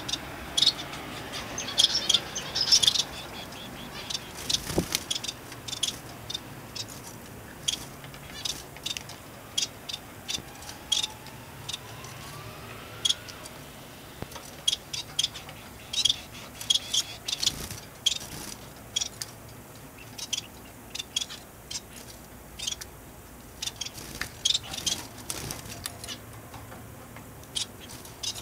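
Small caged finches calling with short, high chirps, scattered irregularly and coming in quick clusters now and then, with the loudest run about two to three seconds in.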